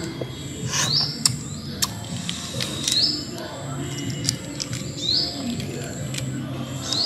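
Boiled duck eggshell cracking and crinkling as it is peeled by hand, a scatter of sharp little clicks. A bird repeats a short rising chirp about every two seconds.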